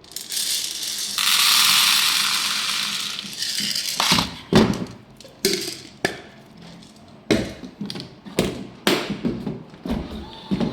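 A loud rushing hiss for about two seconds, then a string of sharp plastic clicks and knocks, a few a second, as the robot vacuum's dustbin is handled and snapped into place.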